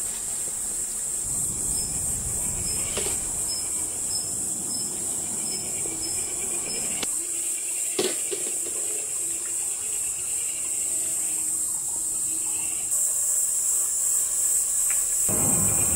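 Steady high-pitched chorus of crickets or similar insects, with a few light clicks. Near the end a louder low rumble comes in.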